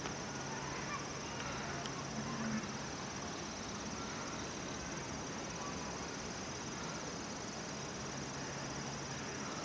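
Steady outdoor ambience: a constant high-pitched insect trill over a hiss, with a faint low hum and brief faint distant voices.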